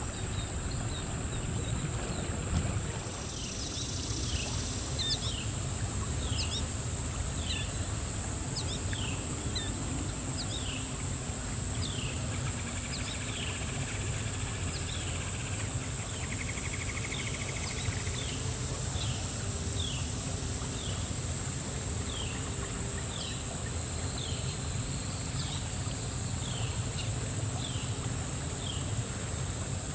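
Killdeer calling: a run of short, sharp, downward-slurred notes, roughly one a second, over a steady low rumble and a constant high-pitched whine.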